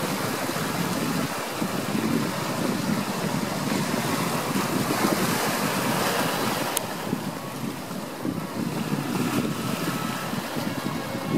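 Steady wash of ocean waves, with wind blowing on the microphone.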